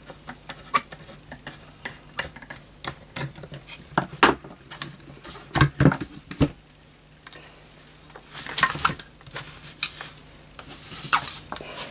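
Workbench handling of a vintage Setra pump-up air rifle: a screwdriver turning out the stock screw, then the metal action knocking and scraping against its wooden stock as it is lifted out, and tools being picked up and set down. Irregular light clicks and knocks, with a few louder knocks around the middle.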